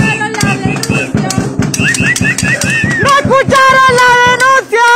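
Drums beating a fast, steady rhythm, with a loud held pitched tone sounding over them from about three seconds in.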